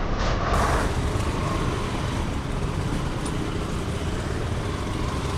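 Motorcycle riding through heavy city traffic, heard from on the bike: a steady mix of its engine, road noise and the surrounding cars and motorbikes.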